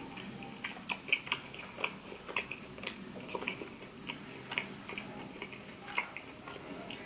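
Close-miked chewing of a soft, frosted Cinnabon cinnamon roll: irregular wet, sticky mouth clicks, several a second.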